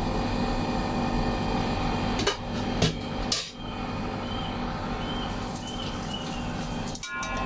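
A few sharp clicks and clinks of a metal serving utensil against a ceramic plate of boiled water spinach, over a steady background hum.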